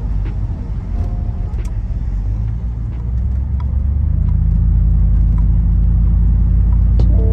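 Chevrolet Express van's engine and road noise heard inside the cab: a low rumble that grows louder and steadier from about four seconds in, through a turn at an intersection.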